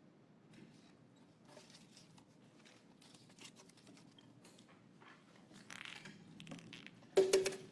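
Faint rustling and small clicks of a paper number slip being drawn from a wooden lottery drum and handled, with a brief louder clatter near the end.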